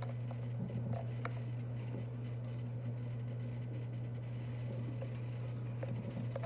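Steady low hum, with a few faint clicks from handling the doorbell's plastic housing and battery lid.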